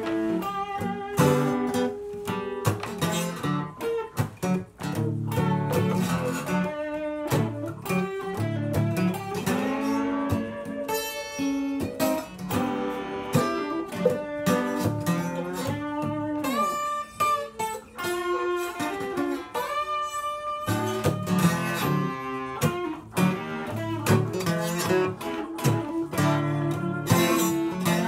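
An acoustic guitar and an electric guitar playing a blues instrumental introduction together, picked and strummed, with some notes gliding in pitch.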